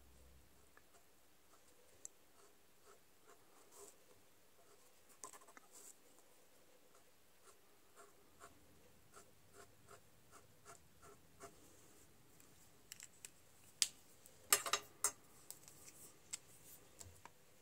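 Faint ticking and scratching of a fine-tip Micron pen on card stock, flicked in short strokes to draw grass. About three-quarters of the way through come a few louder clicks as pens are put down and picked up.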